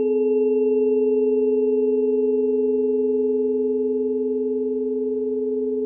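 Planetary harmony for Venus, Neptune and Sedna: several pure steady tones sounding together as one held chord, with two strong low tones and fainter higher ones.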